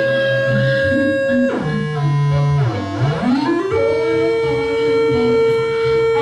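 Electronic noise music: held, buzzy synthesizer-like tones that swoop steeply down in pitch about a second and a half in, climb back up, then settle on a steady drone.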